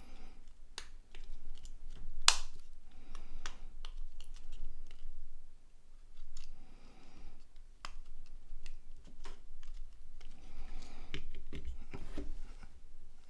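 Small sharp plastic clicks and rubbing from a mobile phone's parts being handled and fitted together by hand, irregular, with one louder snap a little over two seconds in.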